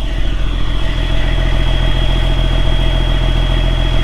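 Semi truck's diesel engine running steadily, heard from inside the cab, with a thin, steady high whistle from the turbocharger above the low drone.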